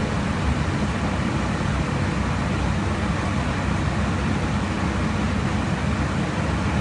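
Steady jet aircraft interior noise heard in flight at cruise: an even, unbroken rumble, heaviest in the low end, with a hiss of rushing air above it.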